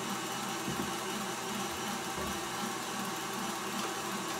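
Electric stand mixer running steadily with its beater turning in the batter, giving an even motor hum.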